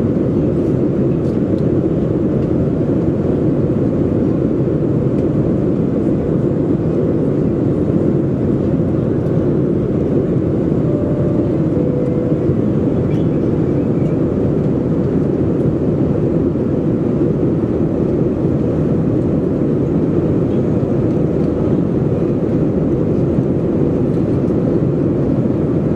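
Steady cabin noise inside a Boeing 737-400 climbing toward cruise altitude: the CFM56-3 turbofan engines and the airflow over the fuselage make an even, deep rushing sound.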